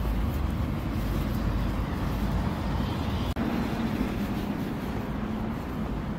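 Steady low rumble of outdoor city noise, breaking off for an instant a little over three seconds in.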